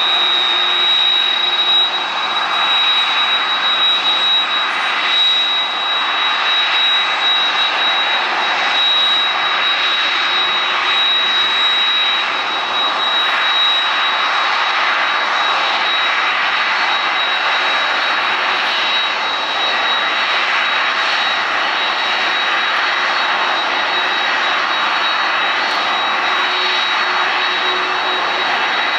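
Jet airliner engines running on the ground: a steady rushing hiss with a constant high whine.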